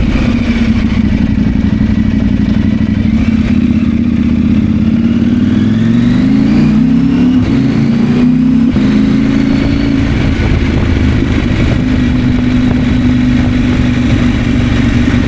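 2024 KTM 890 Adventure's 889 cc parallel-twin engine running under way. The engine pitch climbs for a few seconds past the middle, breaks off briefly and settles back lower and steady.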